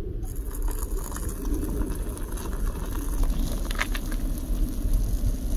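Camp stove burner running under water at a boil: a steady rushing hiss over a low rumble, with a few light clicks.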